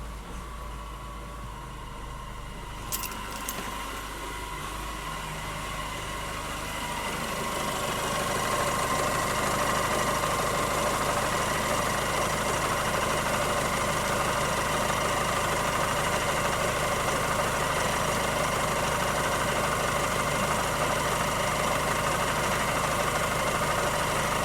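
Mazda 3 MZR-CD diesel engine idling roughly just after a cold start, with a steady whine over the engine note that grows louder several seconds in and then holds. The whine is an odd cold-start noise that the owner says lasts a few minutes; the rough idle he puts down to the engine needing an idle reset. A sharp click sounds about three seconds in.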